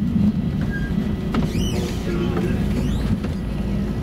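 Stockholm A35 tram running along its line, heard from inside: a steady low rumble of the running gear on the rails, with a few faint creaks and a brief whoosh of passing traffic about halfway through.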